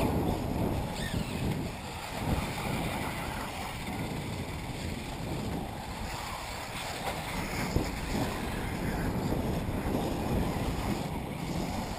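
Wind buffeting the microphone, with the faint rising whine of electric 1/8-scale RC off-road buggies racing on the dirt track.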